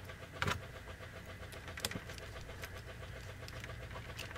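A few light clicks and taps of a screwdriver and small parts handled on a model locomotive's chassis, over a steady low background hum.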